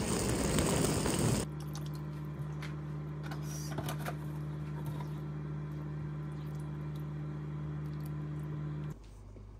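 A small hard-shell suitcase's wheels rolling over stone paving, which cuts off abruptly about a second and a half in. Then a steady low hum runs under faint clicks and scrapes as a silicone spatula stirs simmering bolognese sauce in a nonstick pan on an induction hob.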